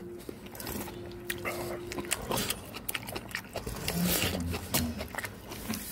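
Someone eating at the table: utensils clicking against dishes and the stew pot, with mouth noises of eating mixed in.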